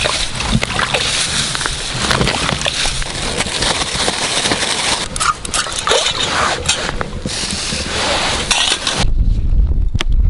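Thin plastic bag crinkling and rustling loudly as damp groundbait is kneaded and mixed inside it by hand, with sharp crackles. About nine seconds in it gives way to a low rumble with a few clicks.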